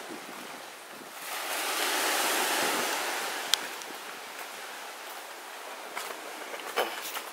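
Small sea wave breaking and washing up a sandy beach: a hiss that swells about a second in and dies away over the next few seconds. A sharp click in the middle and a few faint knocks near the end.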